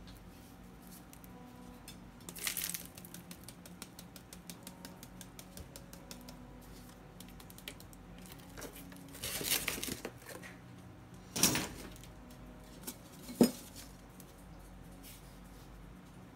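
Unpacking noises from a cardboard box of soil and a plastic bag: scattered rustles and light ticks, a longer rustle midway, and two sharp knocks in the second half, the later one the loudest.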